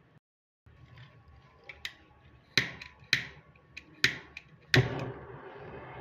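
Gas brazing torch being lit: four sharp clicks, each dying away quickly, then it catches near the end and burns with a steady hiss, ready to braze a leaking copper joint on the refrigerator's pipework.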